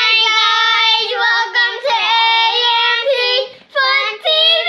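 A child's high voice singing in long held notes that slide up and down, breaking off briefly a few times.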